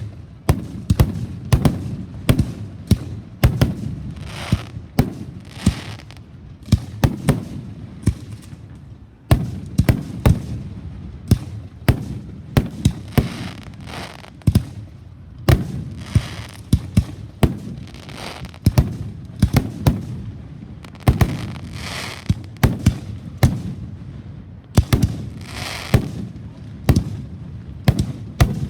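Fireworks going off in a dense barrage: rapid, irregular bangs, often several a second, with a low rumble between them and a hiss now and then.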